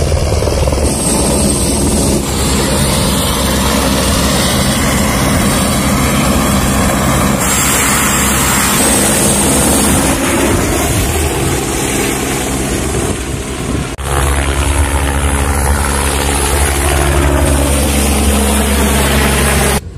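Light helicopter lifting off and flying low overhead, its rotor and turbine engine running loud. The pitch sweeps up and down as it passes.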